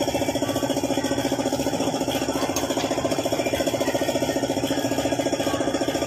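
Suzuki F6A three-cylinder engine idling, a steady, fast, even pulsing.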